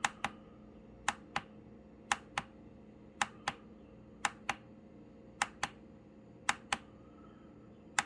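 A plastic button on an AcuRite weather station display console is pressed about once a second to step through its menus. Each press gives a sharp double click, press and release, about a quarter second apart.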